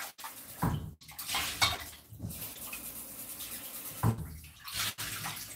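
A pot handled in a stainless steel kitchen sink, knocking and clattering against the basin several times, with faint running tap water, as fish is rinsed in it.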